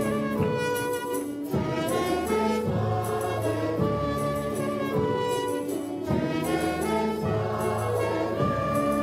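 Mixed choir singing with a small orchestra of violins and other instruments accompanying.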